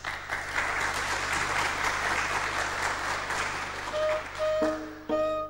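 Audience applauding, thinning out near the end. About four seconds in, a ney (Persian end-blown reed flute) sounds a few short held notes on one pitch: the shahed (reference) note to which the tonbak is tuned.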